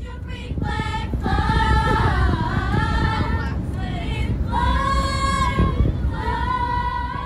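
A group of children singing together in unison, holding long notes, over the steady low rumble of a coach bus on the road.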